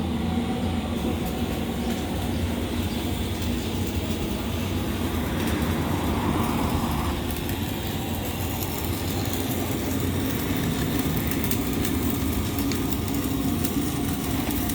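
Steady low rumble of a running vehicle engine, with a brief swell of hiss about six seconds in and faint light ticks later on.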